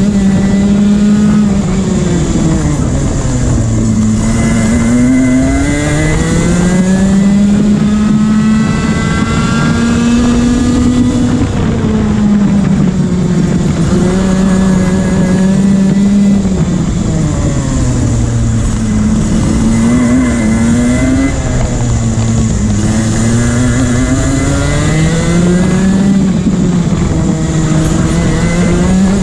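Rotax 125cc two-stroke single-cylinder kart engine at race pace, heard onboard: its pitch climbs and holds high on the straights, then drops several times as the driver lifts off for corners, over a steady rush of noise.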